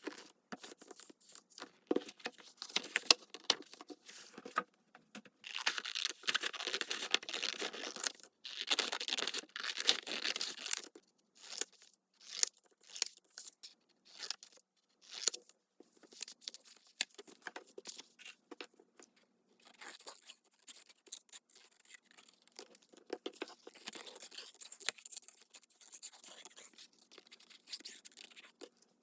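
Paper being handled and torn. Two long tears of a few seconds each come in the first half, amid short rustles and taps, then softer rustling and handling.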